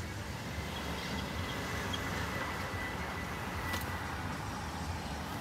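2005 Toyota Prius's 1.5-litre four-cylinder engine idling, a steady low exhaust drone heard from inside the cabin, louder than stock because the catalytic converter has been cut out. A faint thin high whine runs through most of it.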